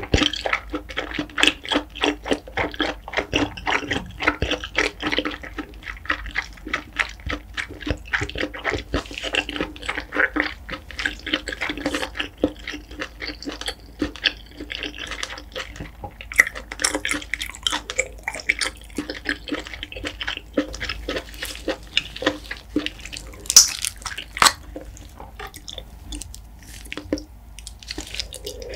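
Close-miked wet chewing and lip-smacking of steamed king scallop meat in a spicy sauce: a fast, continuous run of small moist clicks and squelches, with a few sharper clicks.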